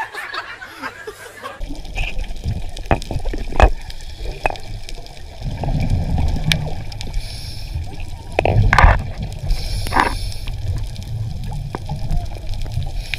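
Underwater sound on a scuba dive: a low rumble with clicks and bubbling, and two longer bursts of bubbling about six and nine seconds in, typical of exhaled bubbles from a diver's regulator.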